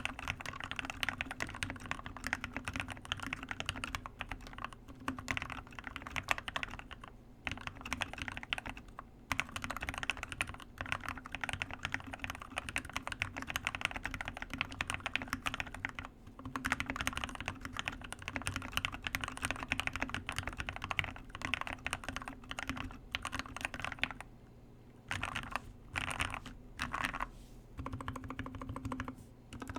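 Typing on a modded Keychron K6 mechanical keyboard fitted with Gateron Black Ink switches, lubed with Krytox 205g0 and filmed, giving a deep, muted clack. Fast runs of keystrokes with brief pauses between bursts.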